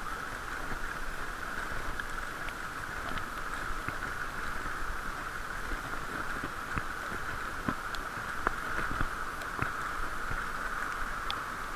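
Bicycle rolling over brick paving, a steady tyre-and-road hiss muffled by the camera's waterproof case, with scattered sharp clicks and taps.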